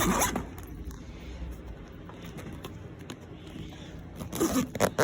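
Zipper on a freshly repaired keyboard case being run along its track, working again. It is louder right at the start and gives sharper rasps near the end.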